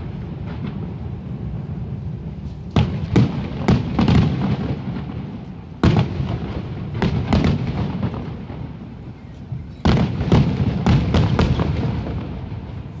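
Fireworks display: booming aerial shell bursts with a low rolling rumble between them. The bangs come in three clusters, about three seconds in, around six to seven seconds in, and a quick run of several near the end.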